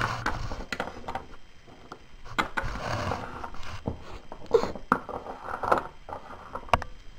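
Plastic toy figures and a small plastic toy bed being handled and set down on a tabletop close to the microphone: scattered clicks and taps with bursts of rustling as hands brush past.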